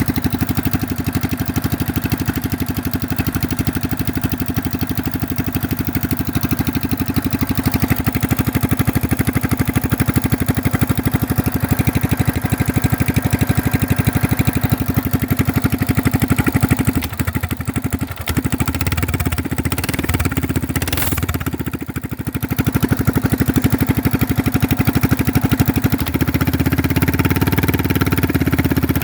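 Coleman BT200X mini bike's single-cylinder engine running at idle through a straight header pipe with no silencer, a loud, open rumble just after a cold start with the choke now off. The sound dips briefly twice in the second half and picks up again near the end.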